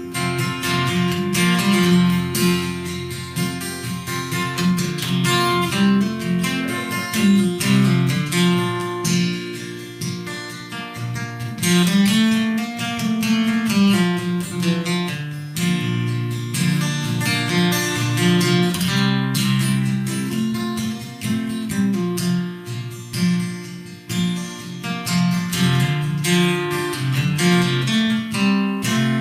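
Acoustic guitar playing an instrumental break, picked and strummed chords in a steady country rhythm.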